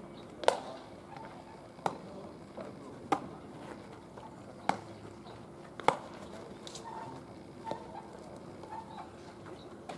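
Baseball practice: a string of five sharp cracks, a second or so apart, of baseballs being struck, then faint voices in the background.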